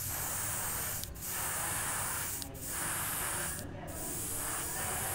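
Airbrush hissing as it sprays paint, in about four bursts of a second or so each with brief breaks between, over a low steady hum.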